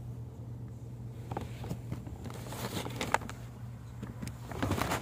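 Scattered clicks and rustles of a phone being handled and moved against cardboard and cloth, growing busier near the end, over a steady low hum.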